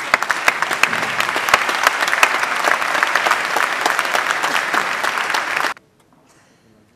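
Audience applauding: many people clapping together, stopping suddenly near the end.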